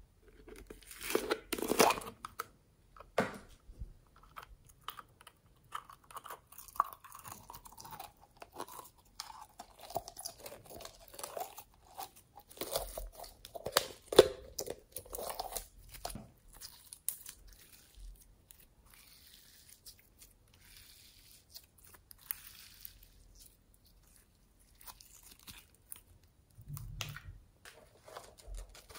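Glossy orange slime being pulled out of a plastic tub into a glass dish: sticky squelching and crackling with many small pops, fainter in the second half. Near the start a louder cluster of plastic clicks and rubbing as the tub's lid comes off.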